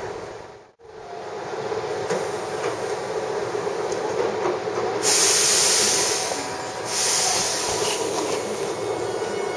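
Hankyu electric train at the platform, giving a steady rumble, with a brief drop-out in the sound just under a second in. Two loud bursts of compressed-air hiss come about five and seven seconds in, each lasting over a second.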